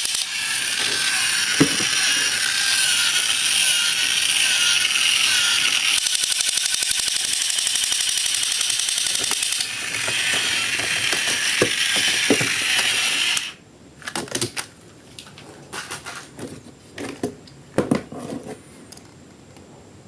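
A small geared mechanism running with a steady ratcheting rattle, dipping briefly and then cutting off suddenly about thirteen seconds in. Soft scattered clicks of plastic being handled follow.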